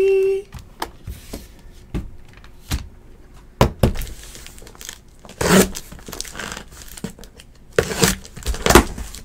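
Trading-card packaging being opened and handled on a table: scattered knocks and taps, with bursts of tearing and crinkling about halfway through and again near the end.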